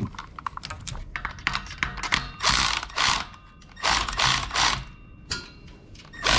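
Cordless electric ratchet running in short bursts on a bolt, two longer runs of about a second each in the middle and a brief one at the end, with light metallic clicks from tools and parts in between.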